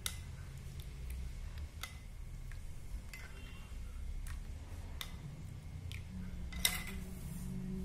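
Metal spoon clinking lightly against a glass tumbler, a few scattered clicks, the loudest near the end, over a low steady hum.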